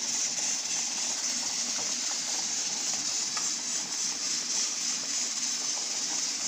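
Steady hissing and bubbling from a steel roasting pan of chicken breasts simmering in broth over a gas burner, with a couple of faint clinks from a spoon.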